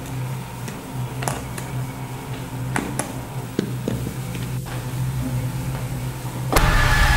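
Scattered sharp metallic clicks of pliers working a nut on a bolt of a metal leg restraint, over a low steady drone. Near the end a sudden loud rushing sound with ringing tones sets in.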